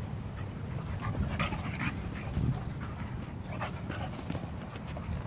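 A dog panting close by in quick, noisy breaths that come in two bunches, over a steady low rumble.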